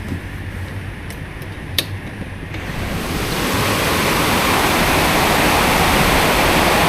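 A sharp click, then a steady rush of falling water that swells up over about a second and a half and holds loud: either a shower running or a heavy tropical downpour.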